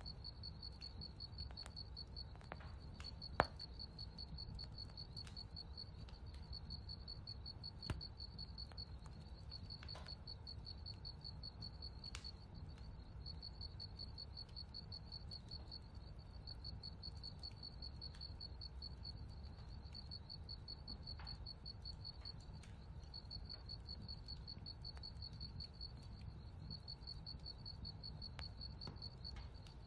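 Faint outdoor ambience of insects chirping in a steady, high, pulsing trill over a low steady rumble. There is a single sharp click about three seconds in and a softer one near eight seconds.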